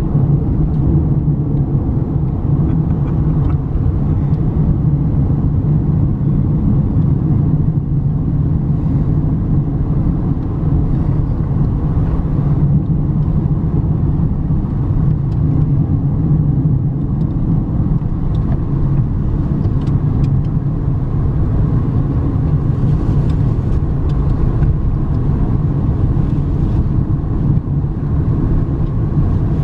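Steady low road and engine noise heard inside the cabin of a car driving along at cruising speed.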